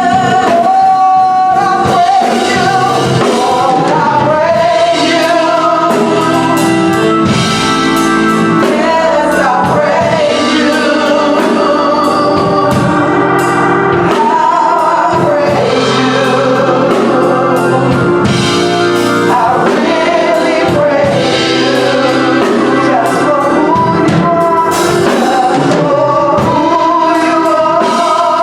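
Gospel song: a group of singers with instrumental accompaniment, loud and continuous.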